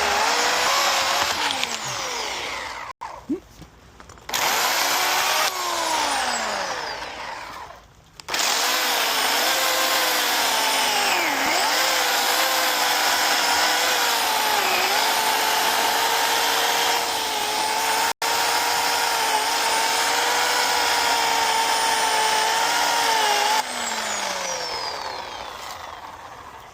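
Electric chainsaw cutting wood: the motor whines in two short bursts, each spinning down with falling pitch, then runs steadily for about fifteen seconds, its pitch dipping slightly under load, before winding down near the end.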